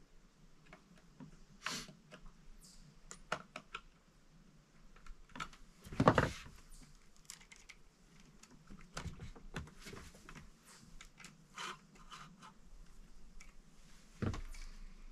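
Scattered light clicks and rattles from a Supmix 62 cc chainsaw's guide bar and chain as they are handled and adjusted on the saw. A louder knock comes about six seconds in and another near the end.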